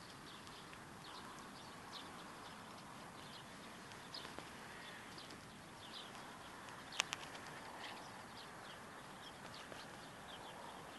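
Faint open-air ambience with small birds chirping here and there, and a sharp double click about seven seconds in.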